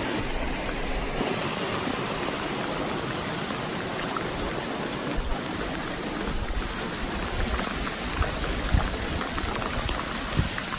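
Flash-flood water rushing steadily, with a few brief low thumps in the second half.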